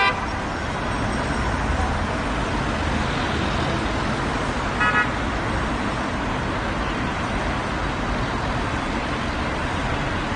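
Steady road traffic noise, with one short car horn toot about five seconds in.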